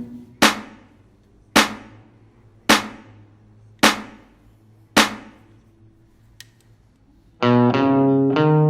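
Guitar background music: five sharp accented hits about a second apart, each ringing out and dying away, then a short lull before the fuller guitar playing comes back in near the end.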